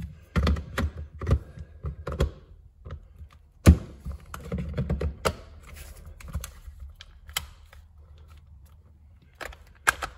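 Plastic clicks and knocks of a Black & Decker 20V Matrix drill body and its attachment being handled and snapped together, with one sharp knock about a third of the way in. The motor is not running.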